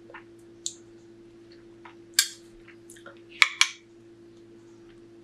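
A few short, sharp clicks and scrapes of kitchen utensils and containers being handled, two of them close together near the end, over a steady low hum.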